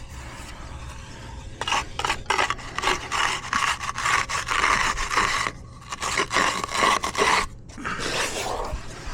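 Hand concrete edging tool scraping along the edge of fresh concrete in repeated strokes, with a brief break partway through and softer strokes near the end.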